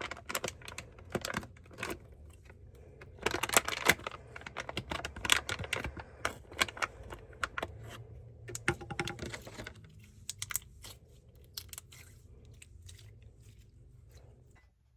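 Glossy slime being squished and stretched in the hands, giving quick sticky clicks and pops, dense for about ten seconds and then sparser.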